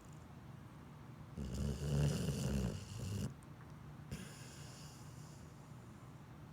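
Pit bull snoring: one loud snore starts about a second and a half in and lasts about two seconds.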